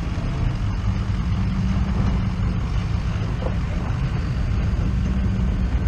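Off-road vehicle engine running steadily at low revs, a deep, even rumble.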